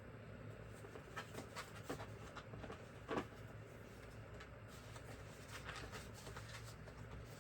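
Faint scattered clicks and light taps of screwdrivers and their case being handled, the clearest about three seconds in, over a low steady room hum.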